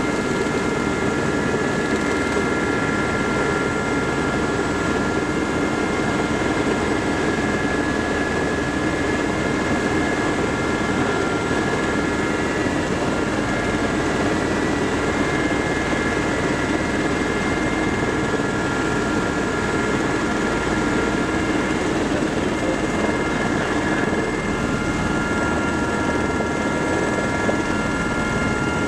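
Cockpit noise of an Aérospatiale Gazelle helicopter in flight on its landing approach: the Turbomeca Astazou turboshaft's steady high whine over the rotor's constant rumble, heard from inside the cabin.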